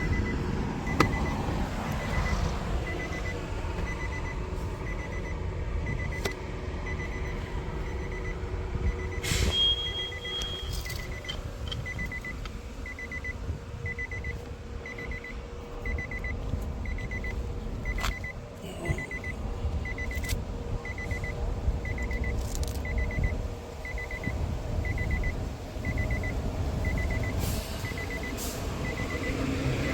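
Steady low rumble of a vehicle engine running, with a regular high-pitched beep about once a second, like a truck's reversing beeper, and a few scattered clicks.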